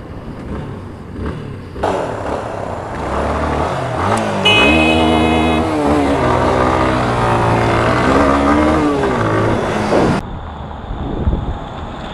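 Motorcycle engine revving, its pitch climbing and dropping again and again as it accelerates through the gears, over wind and road noise. The sound changes abruptly about two seconds in and cuts off near the end.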